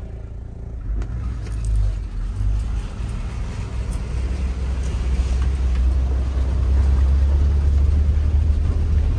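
Low, steady rumble of a vehicle on the move, growing louder about a second in and loudest near the end, with a few light knocks.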